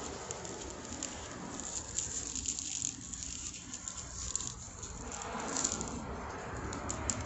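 Faint crinkling and ticking of a disposable plastic glove as a hand rolls and rubs an olive-oiled potato, with a few sharper clicks about five to six seconds in, over a low steady rumble.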